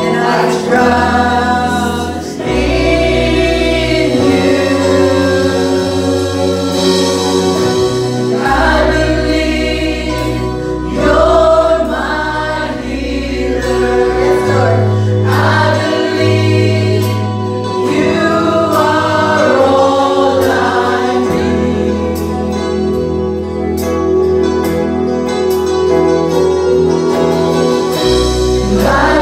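Live Christian worship song: voices singing a melody over a band, with deep bass notes held and changing every second or two and a sustained keyboard-like tone beneath.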